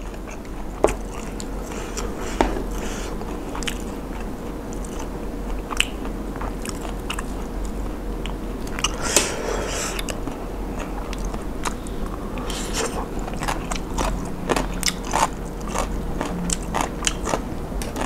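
Close-up chewing and crunching of mouthfuls of papaya salad with rice noodles and seafood, with wet mouth sounds and many short sharp clicks, thickening in the second half.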